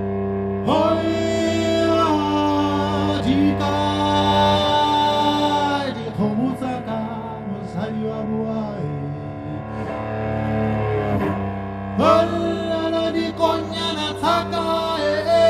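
A man singing long, held phrases over a cello that keeps a low, steady tone beneath him. One long phrase starts about a second in and ends around six seconds; after some shorter, broken notes, another begins about twelve seconds in.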